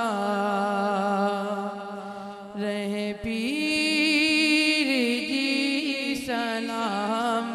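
A man singing a manqabat, an Urdu/Punjabi devotional praise song, through a microphone and PA. He holds long, drawn-out notes with a wavering vibrato, rising to a louder, higher held note a few seconds in, over a steady low drone.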